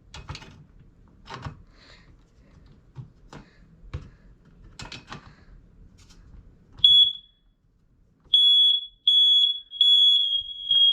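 Soft handling knocks, then a smoke alarm's high-pitched beep sounds once about seven seconds in. After a pause of about a second it sounds a run of half-second beeps at the same pitch, the alarm going off under its test button.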